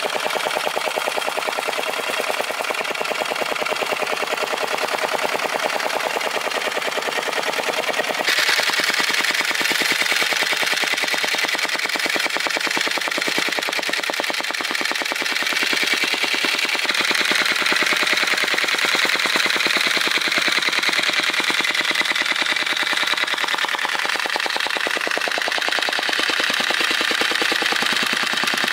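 A machine running with a rapid, even rattle of fast repeated strikes, its sound changing abruptly about 8 and 17 seconds in.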